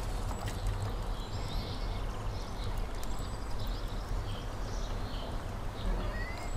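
Outdoor ambience: small birds chirping now and then over a steady low rumble, with a few faint clicks.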